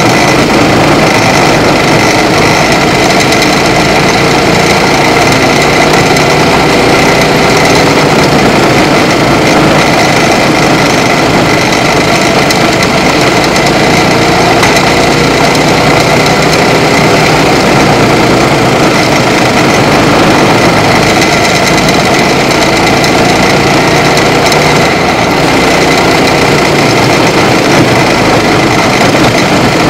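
Racing kart's small engine heard close up from on board, running hard throughout with its pitch rising and falling as it speeds up on the straights and slows for the corners.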